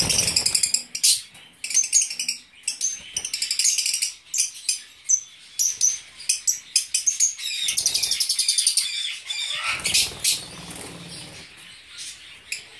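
A flock of Fischer's lovebirds chattering with rapid, high-pitched chirps that overlap almost without pause. A brief rustling noise comes near the start and again about ten seconds in.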